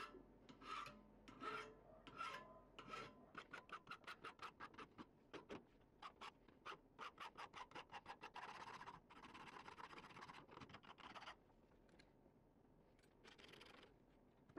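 Hand file scraping across the metal edge of an old can opener held in a vise: a few slow strokes, then quick short strokes about four a second, then a longer continuous rasp in the middle, and one last stroke near the end.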